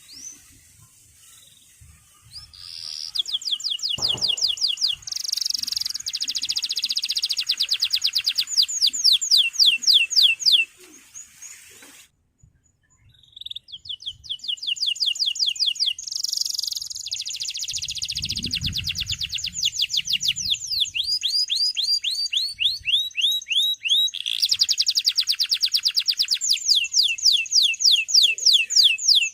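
Male domestic canary singing in long, fast trills: high, quick downward-sweeping notes repeated several times a second, in two long bouts with a short pause about twelve seconds in.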